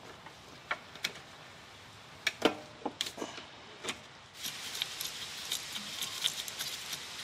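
Small metal clicks and clinks of pliers and a spring hose clamp being worked onto a lawn mower's fuel line at the carburetor. About halfway through, a steady faint hiss comes in under the clicks.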